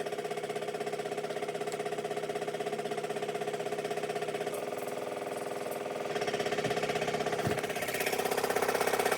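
Waterpik water flosser running, its motor-driven pump giving a steady hum with a fast, even pulsing. It gets louder about six seconds in and again near the end.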